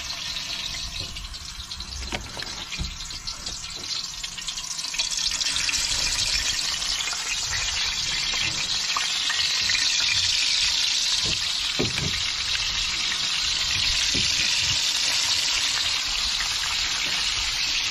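Barracuda steaks frying in hot oil in a pan on a portable gas burner. The sizzle swells about five seconds in as more pieces go into the oil, then holds steady, with a few knocks of a metal spoon against the pan.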